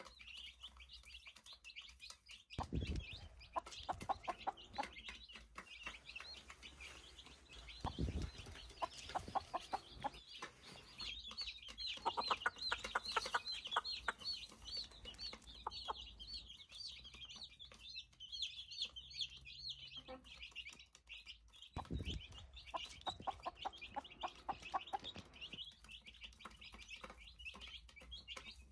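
Chicks peeping continuously in quick high chirps, while a hen clucks in several bursts of rapid clucks. There are a few dull low thumps, about three seconds in, at eight seconds and near twenty-two seconds.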